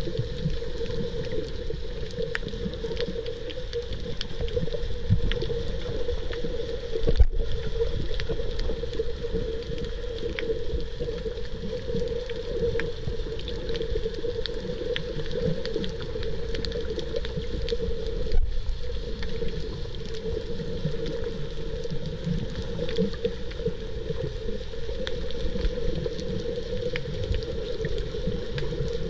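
Underwater ambience picked up by a submerged camera: a steady muffled rumble with a constant low hum and scattered faint clicks. The sound cuts out for an instant twice.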